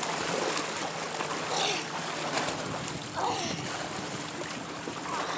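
Lake water lapping and washing in a steady rush, over a faint low hum.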